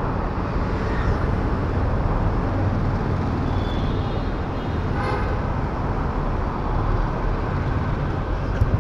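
Ride on a Royal Enfield Classic 350 single-cylinder motorcycle through city traffic, with steady engine, road and traffic noise. A short horn toot comes about five seconds in.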